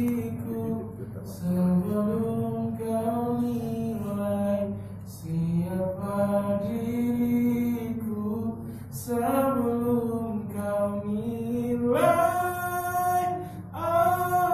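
A man singing an Indonesian pop ballad into a microphone, in long held notes. About twelve seconds in, his voice jumps to a higher, louder note.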